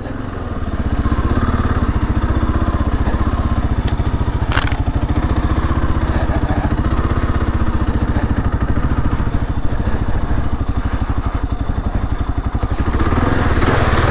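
2022 Kawasaki KLR 650's single-cylinder engine running steadily at low trail speed, its firing pulses coming evenly. Near the end a rush of broad noise rises over it as the bike rides into a muddy puddle.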